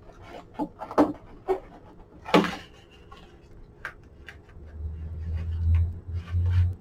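Soft rustling and scattered light clicks as a parchment lampshade is handled and its gimp lacing cord is drawn through the last hole and pulled snug against the ring. In the last two seconds a low rumble comes in.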